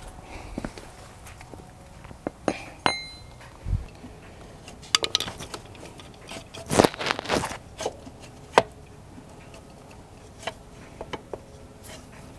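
Scattered metallic clinks and knocks of motorcycle wheel parts and tools being handled as the rear wheel and brake caliper are taken off, with one short ringing clink about three seconds in.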